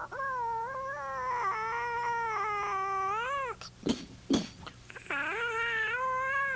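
Two long, wavering cat-like yowls: the first lasts about three and a half seconds, and the second, shorter one starts about five seconds in. Two sharp clicks fall in the gap between them.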